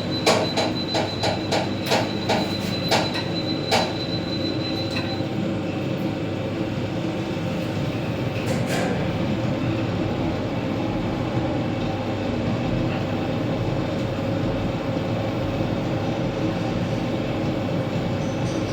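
An LG passenger lift running: a quick series of about eight sharp clicks over a thin high steady tone, then the car's steady rumbling hum as it travels in the shaft.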